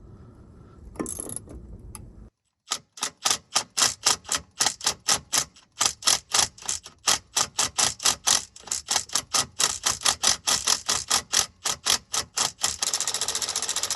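Hand ratchet wrench clicking in fast, even strokes, about four a second, as it turns the driveshaft's penetrating-oiled bolts, then spun quickly into a continuous rattle near the end.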